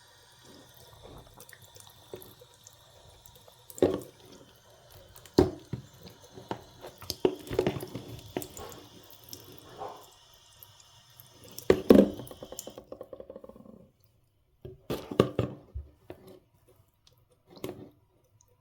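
Water running from a tap into a water bottle, filling it, with several knocks as the bottle is handled; the flow cuts off suddenly about two-thirds of the way through, and a few handling bumps follow.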